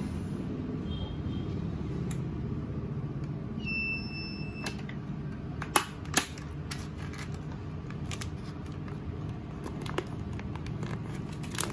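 DZ300B vacuum sealer's pump motor humming steadily. About four seconds in it gives a single beep about a second long, the signal that the heat-sealing time has run out, followed by a few sharp clicks of the lid being unlatched and opened.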